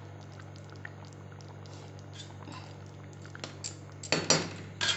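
Thick yellow-pea curry still bubbling in a black iron kadhai, small scattered pops over a steady low hum. About four seconds in, a ladle scoops and scrapes in the pan twice, louder than the bubbling.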